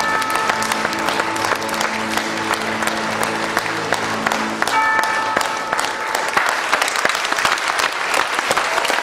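Audience applauding over recorded music. A held low chord in the music stops about four and a half seconds in and gives way to a few higher held notes.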